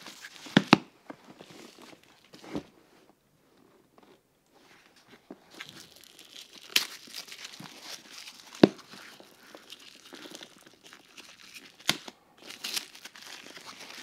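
Crinkling, rustling and tearing of packaging as white protective sleeves and tape are pulled off the handles of a leather briefcase, broken by several sharp clicks and snaps.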